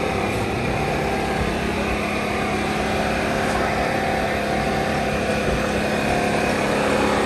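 A steady engine-like drone with a constant low hum, holding level throughout.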